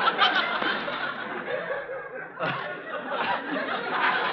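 Live studio audience laughing, a crowd's laughter that rises and falls after a punchline.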